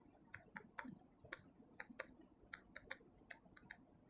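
Faint, irregular light clicks or taps, about three a second.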